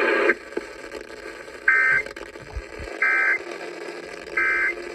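EAS end-of-message (EOM) signal: three short bursts of warbling digital SAME data tones, evenly spaced about a second and a half apart, marking the end of the alert broadcast. A faint hiss and hum from the radio channel runs underneath.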